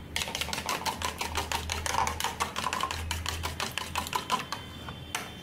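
Eggs being beaten by hand in a ceramic bowl, the utensil clicking rapidly and evenly against the bowl's sides, stopping shortly before the end.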